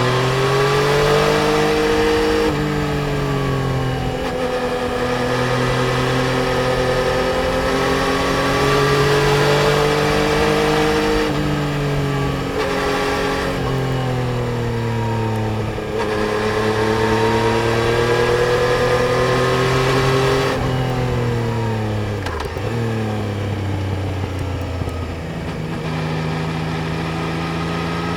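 Yamaha Tracer 900 GT's inline three-cylinder engine under way, its pitch climbing through each gear, then dropping briefly at the shifts, again and again. Once, late on, the revs fall steeply and then climb again.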